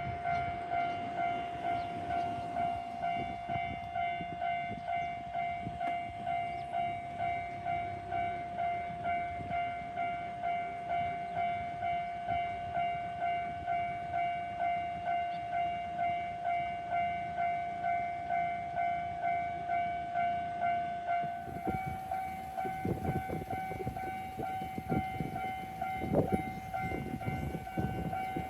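Japanese level-crossing electronic warning bell ringing in its standard pattern, a clanging tone pulsing about twice a second. About three quarters of the way in, a train passes through the crossing and its wheels clatter over the rail joints.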